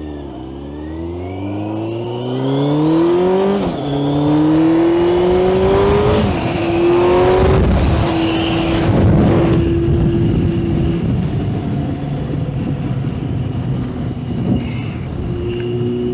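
2000 Yamaha Fazer 600's inline-four engine, fitted with an aftermarket Micron exhaust, accelerating from a start: the revs climb, drop with quick upshifts about 4 and 6 seconds in, then settle to a steady cruise with wind rush.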